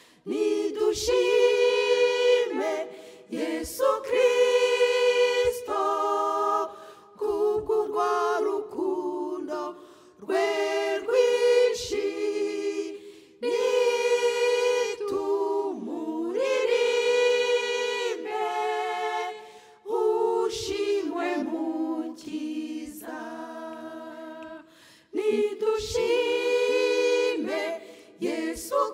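Small church choir singing a cappella, in phrases of a few seconds each with short breaks between them.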